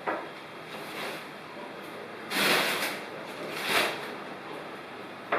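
Two bursts of hissing noise, a longer one a little over two seconds in and a shorter one about a second later.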